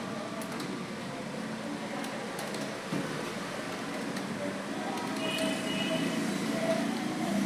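Computer keyboard keys clicking irregularly as someone types, over a steady background hum.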